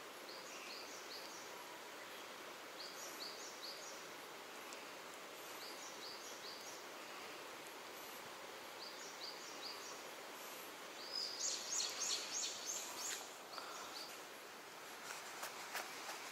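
Outdoor ambience with small birds calling: short groups of three or four high chirps repeat every couple of seconds over a faint steady hiss, with a louder, quicker run of high notes a little past the middle.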